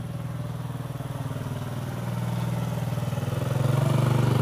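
Small motorcycle engine running at a low, steady speed, growing louder over the last second or so.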